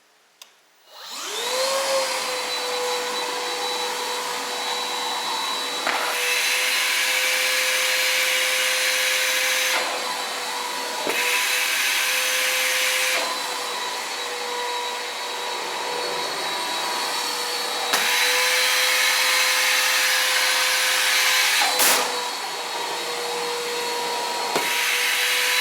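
Milwaukee M18 Fuel cordless wet/dry vacuum switched on at its low setting, its motor spinning up with a rising whine about a second in and then running steadily. The airflow sound shifts every few seconds, with a few short knocks, as the suction attachment is set against walls and pulled away.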